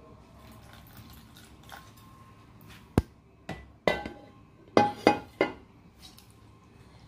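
A metal spoon clinking against a stainless steel mixing bowl as a sauce is stirred: about six sharp clinks, each with a short ring, starting about three seconds in.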